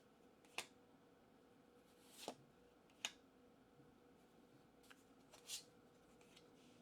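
Pokémon trading cards handled and flicked through one at a time: five faint, crisp card flicks spread across a few seconds, over a faint steady hum.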